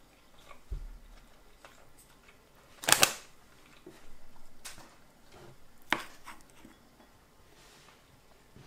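Tableware being handled on a wooden table: a ceramic bowl and a wooden spoon giving scattered knocks and clicks. A low thud comes about a second in, the loudest burst of quick clicks comes about three seconds in, and another sharp knock comes near six seconds.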